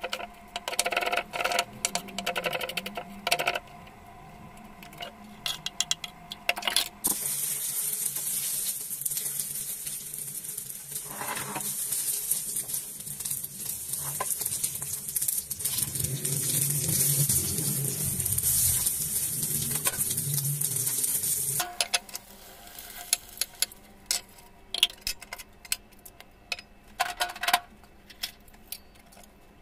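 A knife chopping onions on a wooden cutting board with quick sharp taps, then a steady sizzle of food frying in a pan, stirred with a wooden spatula, which cuts off abruptly about three-quarters of the way through. Scattered light knocks follow.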